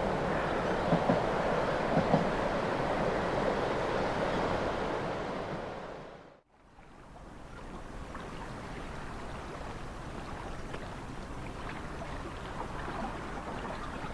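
Diesel railcar (Kyoto Tango Railway MF100) running by with a heavy rumble and a few sharp knocks, then fading out to nothing about six seconds in. After that comes a quieter, steady rushing noise with wind.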